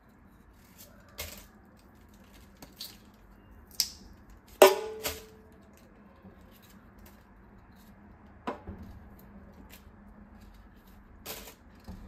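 Kitchen knife peeling raw cassava root over a stainless steel sink: scattered scrapes, clicks and knocks as the peel is cut away and dropped. The loudest knock comes about halfway through, with a short metallic ring.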